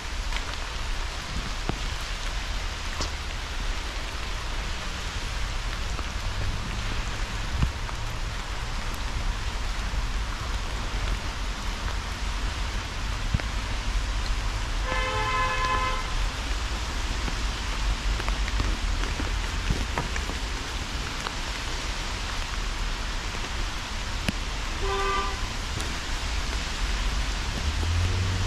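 Steady hiss with a low rumble, over which a vehicle horn honks twice: a toot lasting about a second halfway through, and a shorter, fainter one near the end.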